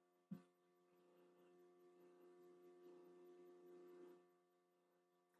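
Near silence: a faint steady hum, with a single click about a third of a second in.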